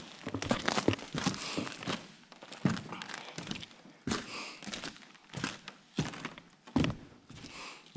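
Irregular knocks, thuds and crunching of debris and litter underfoot as someone moves through a rubble-strewn room, with bumps from the jostled camera.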